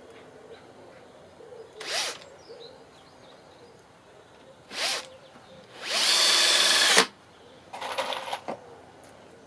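Power drill running in short bursts: two brief spins, then a steady run of about a second, then a last uneven burst.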